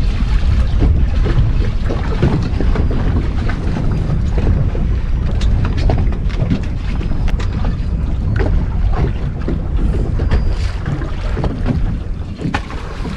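Strong wind buffeting the microphone on an open boat at sea, a heavy steady rumble, with scattered small clicks and knocks throughout.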